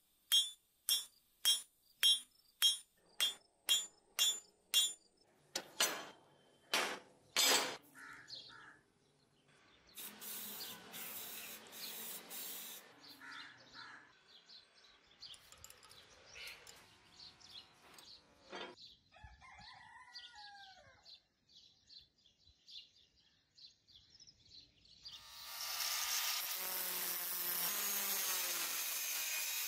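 Hand hammer striking hot steel on an anvil while forging a curved knife blade, about two blows a second, then a few slower blows that stop about eight seconds in. Near the end an angle grinder starts and runs steadily, grinding the steel blank.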